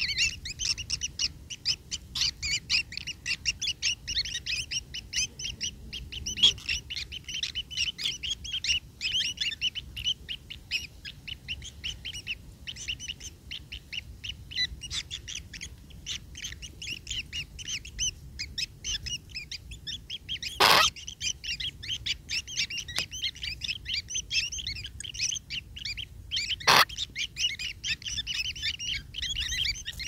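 White-throated kingfisher nestlings begging for food, a dense, continuous run of rapid high chirps. Two sharp clicks cut through, one about two-thirds of the way in and one near the end.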